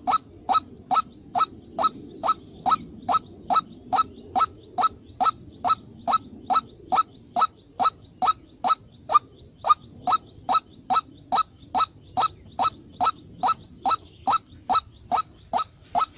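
A bird calling a short, sharp rising note over and over at an even pace, a little over two calls a second.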